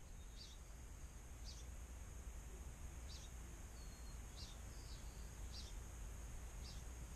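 Faint background noise in a crawl space while the model tank sits still with its motors stopped: a steady low hum and hiss, with faint short high chirps every second or so.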